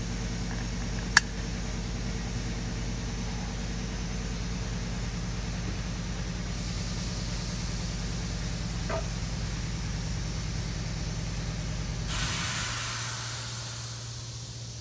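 A steady low hum with one sharp click about a second in. The hum stops near the end as a hiss rises.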